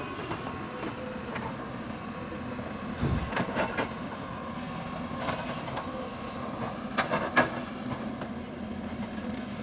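Hydraulic excavator's diesel engine running steadily under load. A heavy thump comes about three seconds in, and sharp knocks follow it and come again near the end, the loudest about seven seconds in.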